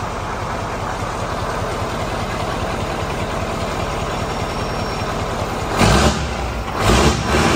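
Scania truck's diesel engine idling through its single vertical exhaust stack, then revved in two short blips near the end.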